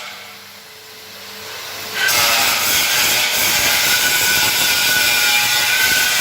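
Abrasive power tool working on metal, a loud hissing whine. It drops away for about two seconds, then starts again abruptly and runs steadily.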